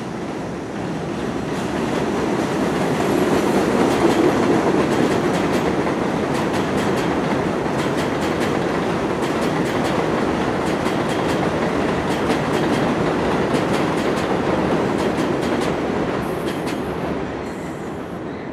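Vintage IRT subway cars of a New York City museum train passing on a steel elevated structure: a steady rumble with the clickety-clack of wheels over rail joints. It swells over the first couple of seconds and fades near the end as the last cars go by.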